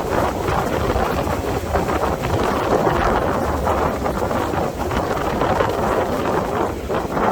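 Strong wind buffeting the microphone in uneven gusts, over the wash of ocean surf breaking on the beach.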